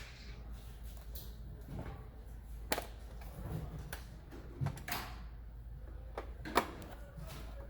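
Scattered small clicks and knocks of a plastic cover and screws being handled and threaded in by hand, the sharpest click about six and a half seconds in.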